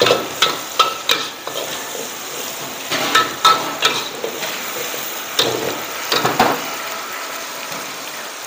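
Shallots, garlic and chillies sizzling in oil in a carbon-steel wok over a gas flame, while a metal ladle stirs and scrapes them. The ladle knocks against the wok repeatedly over a steady frying hiss.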